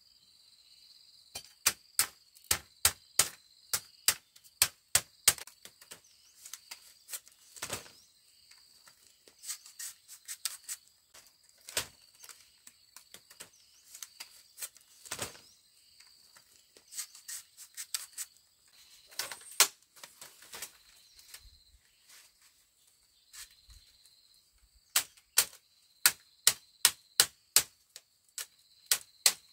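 Sharp knocks in quick runs of about three a second, with pauses between the runs, from hand-tool work on bamboo. A steady, high-pitched insect drone runs underneath.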